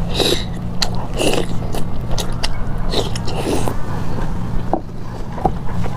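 Close-miked eating: a person biting into and chewing juicy meat-filled food, with several bites and mouth noises about a second apart over a steady low hum.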